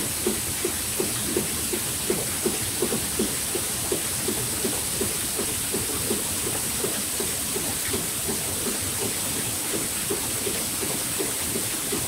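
Rice mill grain-cleaning screen shaking while paddy rice pours across its wire mesh: a steady hiss and rattle of grain with a regular mechanical knock about three times a second.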